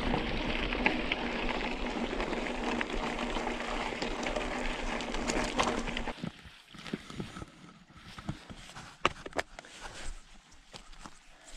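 Mountain bike riding over a rough trail: a steady rushing noise with a low hum that stops suddenly about six seconds in, leaving scattered clicks and knocks.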